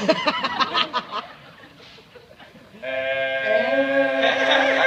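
Men's voices singing one long held note together, with a slight waver, starting about three seconds in; it is the opening note of a comic sung prologue. Before it, in the first second, comes a quick burst of short sharp sounds.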